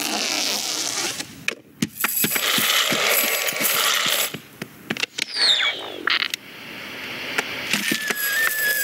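Film sound effects of small plastic toys: many quick clicks, clacks and rustles, with a short falling whistle about five seconds in and a high steady tone starting near the end.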